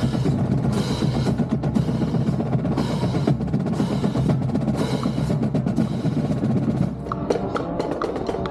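Marching band drumline playing a fast percussion cadence: dense drumming, with loud accents recurring every second or two.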